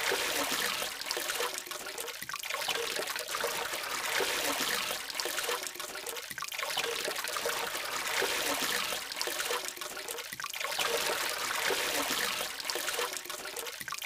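Water from a small aquarium powerhead spilling over stacked rocks and splashing into the tank water, a steady trickling splash.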